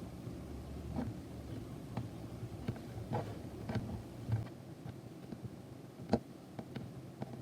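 Scattered light taps and clicks, the sharpest about six seconds in, over a low steady hum.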